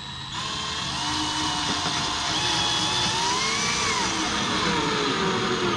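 Hand-held drill-driver motor running continuously, driving a screw into the MDF panel of a subwoofer box. Its whine rises a little midway and falls back, and it stops just before the end.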